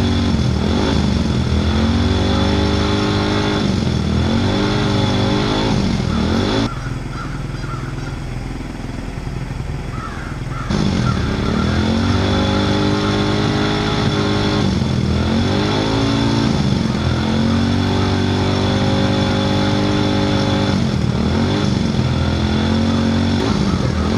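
Vehicle engine revving over and over, its pitch climbing, holding for a second or two, then dropping. It is quieter for a few seconds from about seven seconds in, then picks back up.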